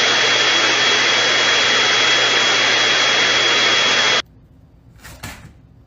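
Loud steady machine noise, an even rush with a steady high whine and a low hum over it, cutting off abruptly about four seconds in.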